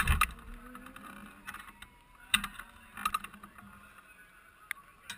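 Formula SAE race car's engine cuts out just after the start. The stopped car then sits fairly quiet, with scattered sharp clicks and knocks over a faint low hum.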